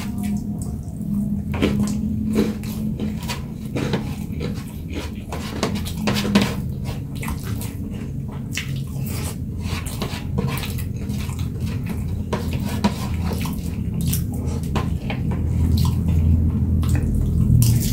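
Person eating close to the microphone: chewing with many short, crisp clicks and crunches, over a steady low hum.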